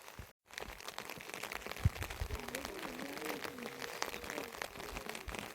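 Heavy rain falling, with many small drop impacts. The sound cuts out for a moment near the start, there is a dull thump about two seconds in, and a faint voice can be heard in the background in the second half.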